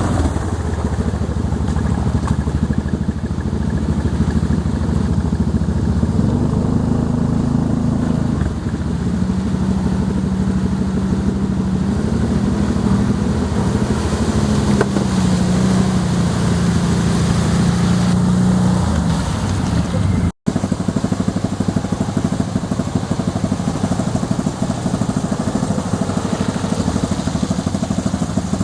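Off-road quad engine running under way, its pitch rising and falling with the throttle, with a brief dropout about twenty seconds in.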